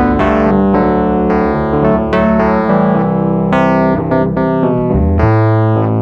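Background instrumental music: a quick run of struck notes, each fading after it sounds, over long held bass notes.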